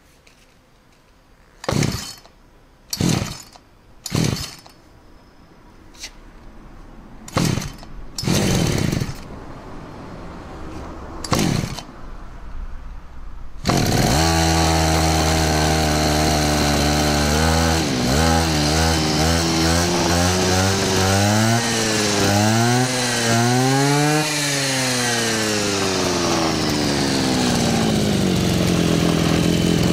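A Zenoah brush cutter's two-stroke engine is pull-started with about six tugs on the recoil starter, catches about 14 seconds in and runs. It is revved up and down several times, rising cleanly each time, then settles to idle. This is a freshly rebuilt engine, its cracked piston rings replaced, now starting and revving properly.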